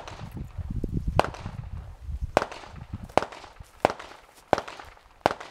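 A series of sharp pops, about seven in five seconds at uneven spacing, each with a short echoing tail.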